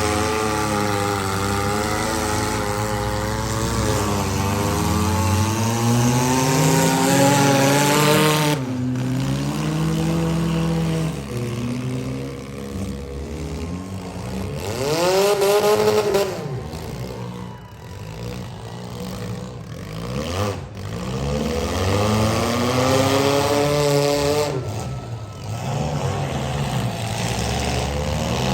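Compact and midsize demolition derby car engines revving up and down, the pitch repeatedly rising and falling as the cars accelerate and back off, with a few sharp knocks in the later part.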